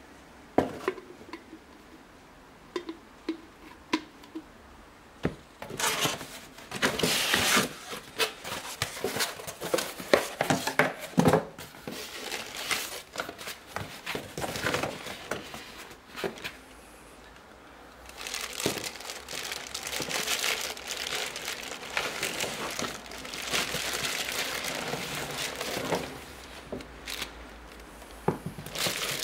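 Unboxing noises: a few light knocks, then cardboard box flaps and a cardboard packing insert being handled and pulled out. From about two-thirds of the way in, a plastic bag crinkles steadily around the blender's chrome base as it is lifted out.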